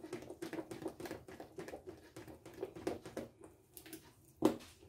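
Spoon stirring thick cake batter in a plastic mixing bowl: soft, irregular taps and scrapes, with one louder knock about four and a half seconds in.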